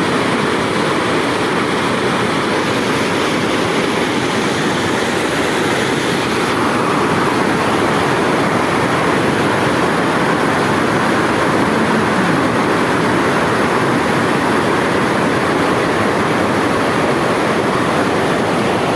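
Water pouring over a dam's waterfall, a steady, loud rushing noise.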